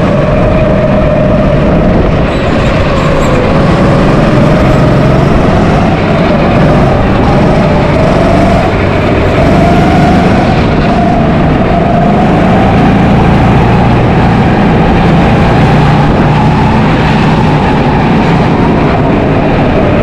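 Rental go-kart running flat out round an indoor track, heard from onboard: a steady motor note that drifts up and down with speed through the corners, over loud road and rushing noise.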